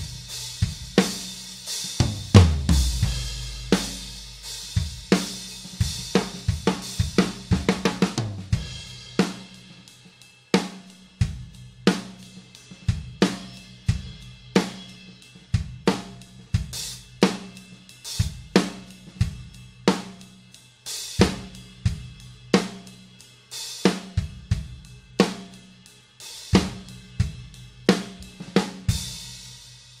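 A drum kit playing a groove with snare and bass drum, timed on a pair of 16-inch Dream Cymbals hi-hats (a Bliss bottom and an Energy top). There is a heavy cymbal wash for about the first nine seconds, then tighter, more separated strokes until the playing stops at the very end.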